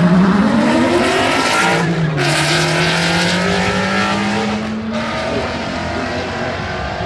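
A Dodge Viper and a built 5.0 Mustang launching and accelerating hard down a drag strip at full throttle. The engine note rises, drops sharply at a gear change about two seconds in, climbs again, then evens out and slowly fades as the cars pull away down the track.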